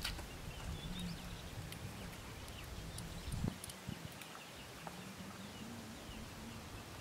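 Faint open-air ambience at a pond's edge: a low wind rumble on the microphone, scattered faint high bird chirps, a sharp click at the very start and a soft knock about three and a half seconds in.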